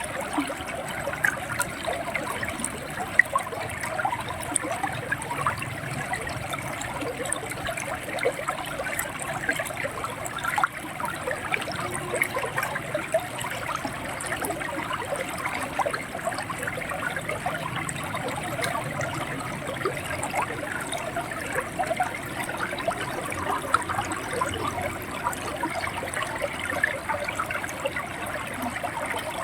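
River water running steadily, a continuous rush dotted with many small gurgling, bubbling flecks.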